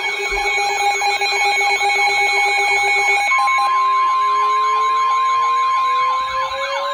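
Weather radio alert alarm: a pulsing electronic tone for about three seconds, then the steady 1050 Hz NOAA Weather Radio warning tone, which holds until near the end. A fast warbling siren sound runs underneath throughout, and another siren tone slowly rises in pitch from about three seconds in.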